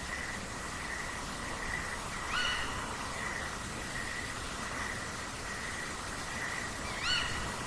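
Night nature ambience: a steady, pulsing insect trill at one high pitch, with two short rising bird calls about five seconds apart.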